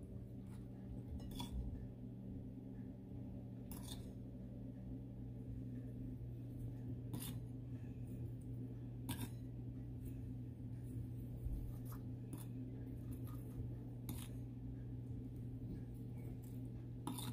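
Light clicks and taps of a spoon against a ceramic plate and bowl, every second or two, as marinade is spooned over a whole fish, over a steady low hum.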